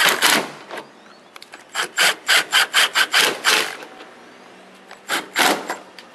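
Socket ratchet on an extension tightening the 10 mm headlight mounting bolts, in three bursts of quick ratcheting strokes, about four a second, with short pauses between.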